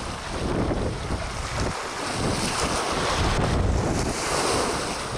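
Wind buffeting the microphone in gusts over choppy water lapping.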